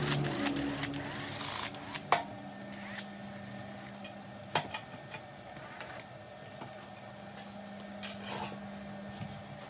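Scattered sharp clicks and knocks of tools and sheet metal being handled, over a faint steady hum, with an even rushing noise in the first second and a half.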